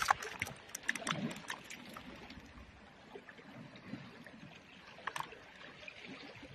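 Small clicks and taps from unhooking and handling freshly caught mackerel on bare rock, thickest in the first two seconds and again about five seconds in, over a faint steady wash of water.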